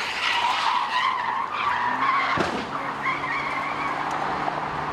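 Car tyres skidding and squealing on the freeway pavement as a car slides out of control in a crash.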